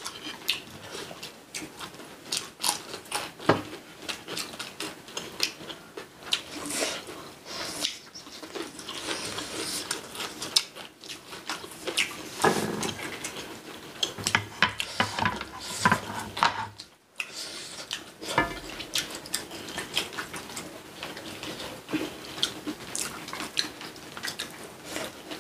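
Eating at the table: cutlery clinking and tapping on dishes in a steady run of small clicks, with chewing and mouth sounds. The sound briefly drops out about two thirds of the way through.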